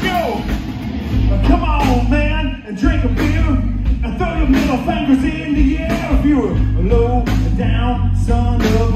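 Rock band playing live: a man's lead vocal over acoustic and electric guitars and a drum kit, with heavy low end. The band drops out for a moment about two and a half seconds in, then comes back in.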